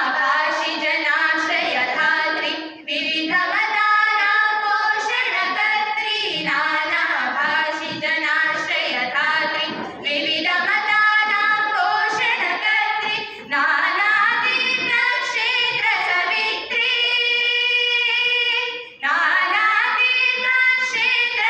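A group of girls singing a Sanskrit song together through microphones, in long held phrases with a few short breaks.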